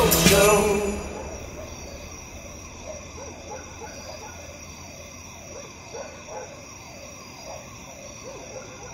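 A pop music track ends about a second in. What follows is a faint steady background of high tones with short, wavering chirps that come over and over.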